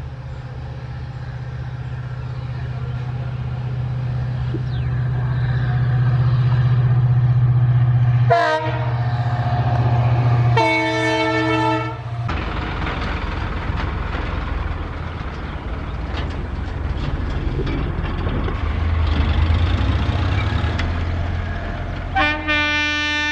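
An EMD WDP4 diesel locomotive's two-stroke engine runs with a deep steady drone. Its multi-note horn gives a short blast, then a longer blast of about a second and a half. After a cut, a second diesel locomotive passes with a rougher rumble of engine and wheels. Near the end, an electric locomotive's multi-note horn sounds.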